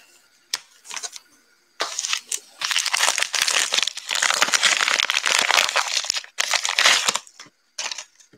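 Plastic bubble mailer crinkling and crackling as it is handled, starting about two seconds in and going on in a dense run for several seconds. There is a single click shortly before it begins.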